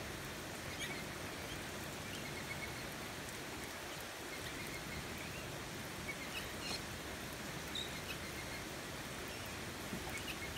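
Steady rain falling on a wet timber deck, an even hiss throughout, with faint short high chirps now and then from birds in the trees.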